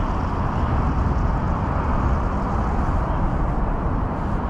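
Steady low rumble of road traffic, with no distinct events.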